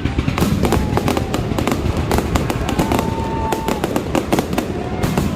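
Fireworks going off in quick succession, a dense run of bangs and crackles with no break, and a short whistling tone about three seconds in.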